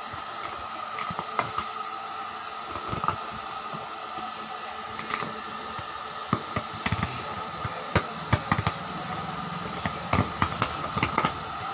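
Electric drill running steadily, grinding down the pole piece in a loudspeaker's magnet gap to clear the remains of a burnt-out voice coil, with a constant whine and scattered scraping clicks that come more often in the second half.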